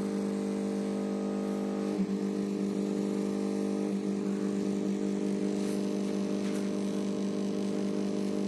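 Front-load washing machine drain pump running with a steady electric hum.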